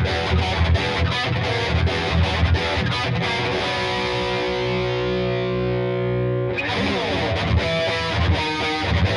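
PRS SE Custom 22 electric guitar played with heavy distortion. Fast picked lead lines give way near the middle to a note held ringing for about three seconds, then fast picking starts again.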